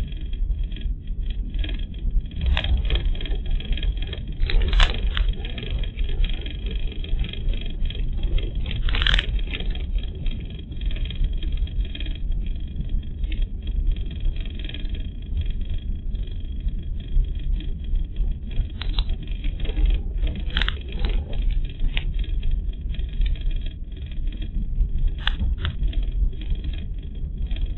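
A car driving, heard from inside the cabin through a dashcam's microphone: a steady low rumble of tyres and engine, broken by scattered short knocks and rattles, the sharpest about 5 and 9 seconds in.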